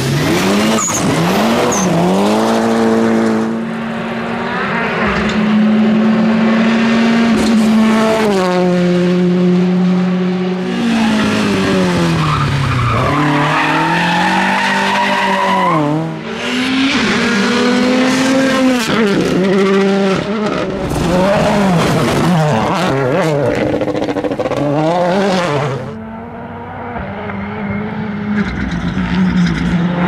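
Several rally cars driven hard on gravel stages in turn, a Mitsubishi Lancer Evolution first. Each engine's pitch climbs and drops sharply with gear changes and lifts, at times held high for a few seconds, over the hiss of tyres sliding and gravel spraying.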